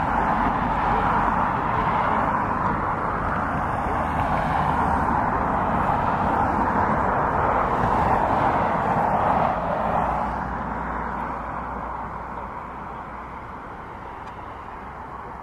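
Boeing 777 freighter's GE90 turbofan engines running at taxi power, a steady jet noise with a low rumble beneath. It eases off and grows quieter from about ten seconds in.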